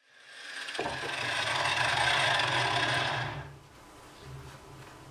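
Grinder with an abrasive disc sanding the edge of a steel strip clamped in a vise: a rasping grind that swells over the first second, holds, and fades about three and a half seconds in, with the motor's low hum running on underneath.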